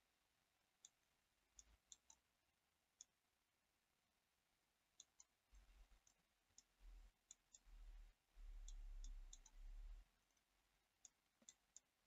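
Faint computer mouse clicks, about twenty, short and irregularly spaced, over near silence. A faint low rumble comes and goes in the middle.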